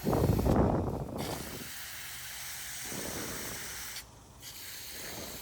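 Garden hose spray hissing steadily as plants are watered, with a louder rush of water in the first second. The spray cuts out briefly twice.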